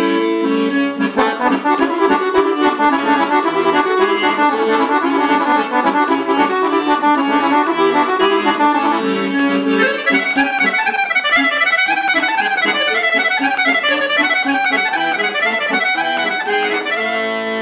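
Chromatic button accordion played solo: a fast melody of quick runs over chords, moving up into a higher, lighter register about halfway through and settling on a held chord at the very end.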